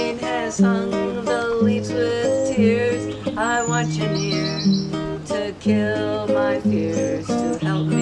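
Nylon-string classical guitar fingerpicked in an instrumental passage, notes ringing one after another. Birds chirp in the background, a short high call recurring every few seconds.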